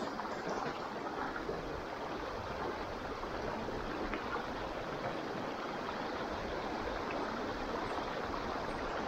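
Shallow, rocky mountain river flowing steadily over stones and boulders.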